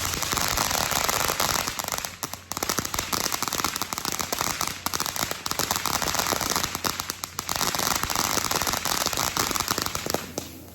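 Firework crackling: a dense, rapid run of small pops that starts suddenly, thins out briefly twice, and dies away near the end.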